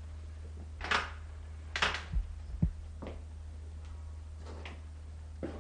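Soft rustling and light knocks of movement as a man gets up from a wooden chair, with two low thuds about two seconds in, over a steady low mains hum from the old tape.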